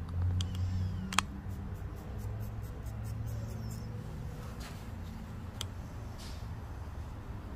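Razor cutting wet hair held against a comb: a quick run of short, crisp strokes, with a single sharp click about a second in. A steady low hum runs underneath.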